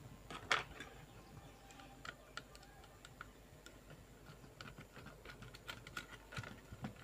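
Faint, scattered small clicks and scrapes of a screwdriver tightening the mounting screw of an IC onto a TV chassis's metal heatsink bracket, with one sharper click about half a second in.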